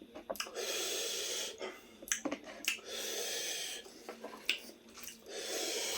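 Close-miked eating sounds: wet mouth clicks and smacks of chewing between three long, airy breaths.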